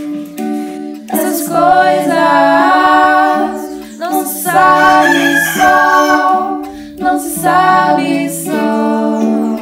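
Several women's voices singing a slow song together in harmony over a plucked string accompaniment. The voices come in about a second in.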